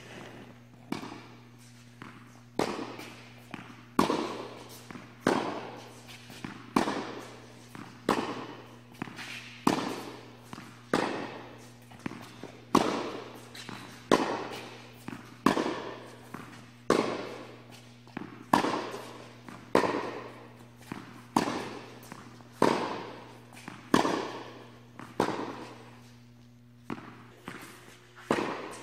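Tennis balls being struck by rackets and bouncing on an indoor hard court in a steady rally, a sharp pop about every second and a half, each echoing in the hall, over a steady low hum.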